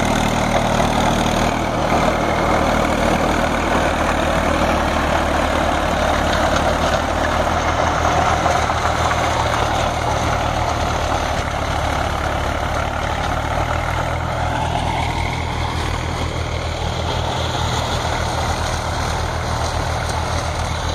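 Diesel tractor engine running steadily under load as it pulls a Jadhao Layland rotavator (rotary tiller), with the blades churning through dry soil. The sound grows a little fainter in the second half as the tractor moves away.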